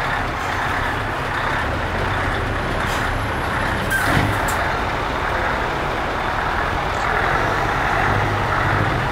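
Diesel engine of a truck tractor unit running as the truck rolls slowly past, with a short sharp sound about four seconds in.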